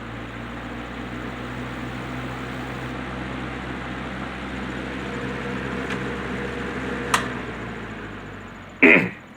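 Wizard window box fan running on high speed, its rebuilt motor on transplanted bearings giving a steady hum under the rush of air. Near the end comes a sharp click, then a loud brief thump, and the fan's sound begins to die down.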